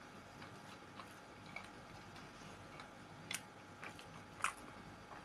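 Faint close-up chewing of boiled pelmeni, with soft wet mouth clicks and smacks scattered throughout, a couple slightly louder ones in the second half.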